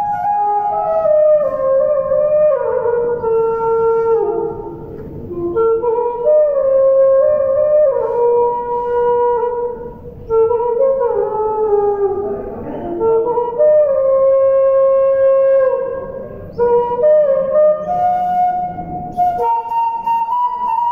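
Side-blown bamboo flute playing a folk melody in held notes that step up and down, with short breaks between phrases.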